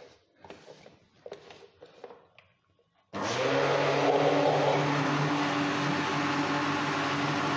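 A few light clicks and knocks as the lid of an electric blender jug is fitted and pressed down, then about three seconds in the blender motor switches on abruptly and runs steadily. It is churning cream and water, which have already turned foamy, to separate out butter.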